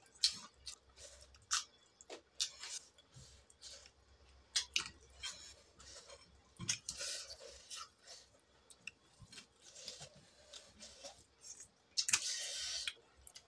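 Close-miked chewing and mouth smacking while eating chicken curry and rice by hand, in short irregular clicks, with a longer, louder noisy stretch near the end.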